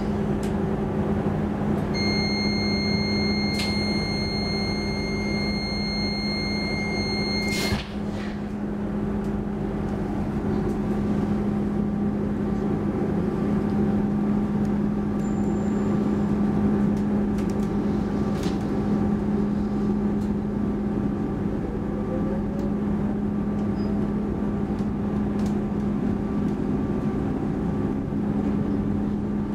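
Interior of an X10 electric commuter train: a steady high two-tone warning signal sounds for about six seconds and ends with a sharp clunk as the doors shut. The train then runs on with a steady electric hum and rolling noise, with a faint rising whine as it gathers speed.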